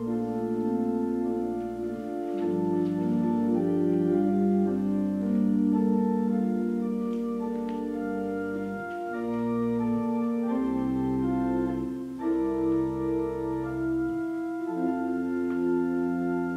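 Church organ playing slow, sustained chords that change every second or two over a deep bass line.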